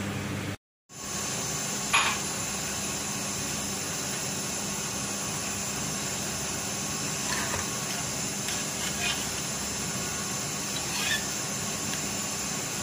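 Steady background hiss with a sharp metallic clink about two seconds in and a few lighter knocks later, from a stainless-steel potato ricer and bowl being handled while boiled potatoes are pressed. The sound cuts out briefly near the start.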